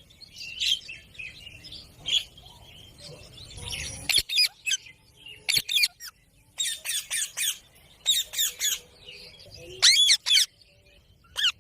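Indian ringneck parrots calling in short, high-pitched squawks, several coming in quick runs of four or five.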